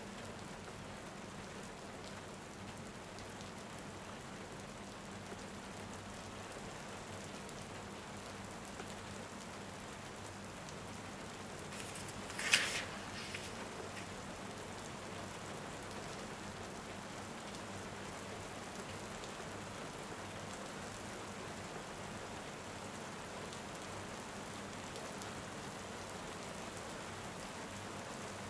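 Steady rain, an even hiss, with one short, sharp sound about twelve seconds in.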